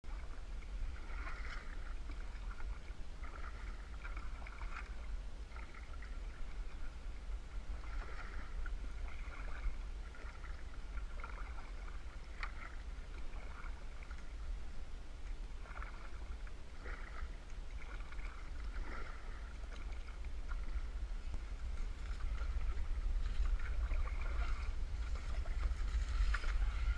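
Canoe being paddled through still, duckweed-covered swamp water: soft, irregular paddle strokes and water sounds over a steady low rumble. The sound grows a little louder in the last few seconds as the canoe pushes into tall reeds.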